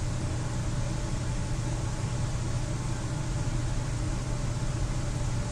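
Steady low hum with an even hiss over it, unchanging: continuous room background noise.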